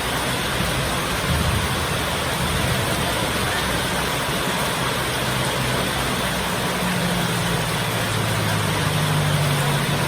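Heavy rain falling steadily as an even hiss, with a low engine-like hum underneath that grows a little stronger in the second half.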